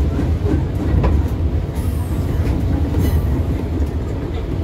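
Running noise inside a moving KRL Commuterline electric commuter train car: a steady low rumble of the wheels on the rails, with occasional short clicks.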